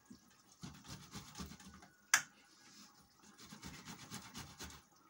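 Ripe tomatoes being grated by hand on a metal box grater: rapid, repeated wet scraping strokes, about three a second, in two runs with a short pause between them. A single sharp click comes a little after two seconds in.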